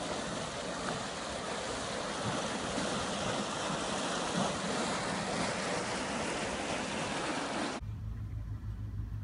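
Water gushing up from a burst underground irrigation pipe and churning in a flooded crater: a steady rushing noise. About eight seconds in it cuts off abruptly and a low steady rumble takes its place.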